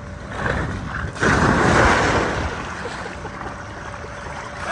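Rush and splash of water as a person slides down a wet inflatable water slide into the splash pool at its foot, starting suddenly about a second in and fading over the next couple of seconds.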